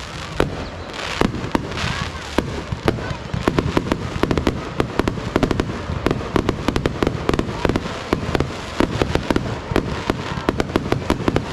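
Fireworks going off in a rapid string of sharp bangs, coming faster and closer together from about three seconds in, over a constant low rumble.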